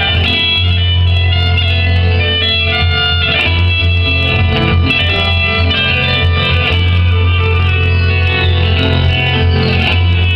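Instrumental music played at a steady level: a guitar with a violin-like melody over a constant low drone.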